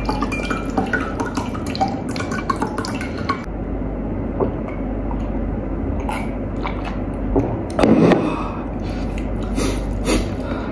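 Close-up wet chewing and mouth sounds from eating fried chicken, then sipping from a mug, with a loud swallow about eight seconds in.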